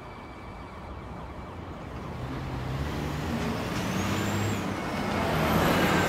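City bus approaching and pulling in to the stop, its engine growing steadily louder until it is closest near the end.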